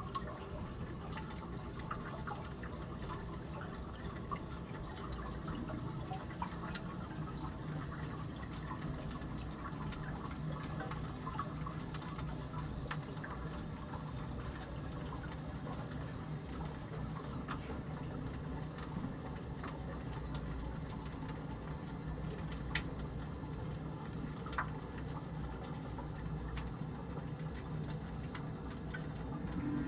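Water running steadily, with a few faint clicks.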